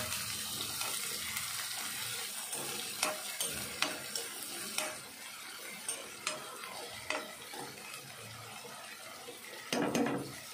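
Chopped onions and green chillies sizzling in hot oil in a kadai while a steel spoon stirs them, scraping and tapping against the pan every second or so. The sizzle dies down a little as it goes, and there is a louder clatter near the end.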